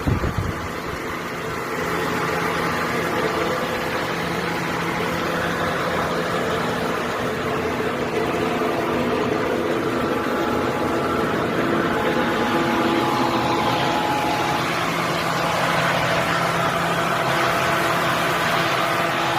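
Innotec TIP-series portable blower fan running steadily: an even rush of air with a constant motor hum, after a brief knock at the start.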